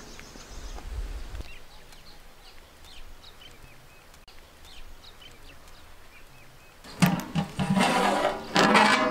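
Scattered bird chirps over quiet rural ambience. About seven seconds in, loud squeaking and scraping starts as a cloth is rubbed over the rim of a big metal cooking pot.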